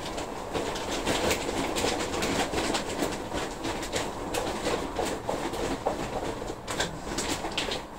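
Hands filling small plant pots with compost: a steady rustle and scrape of soil with irregular light knocks and clicks.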